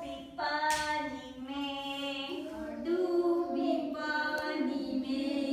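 A woman and children singing a song in long held notes that slide gently from pitch to pitch.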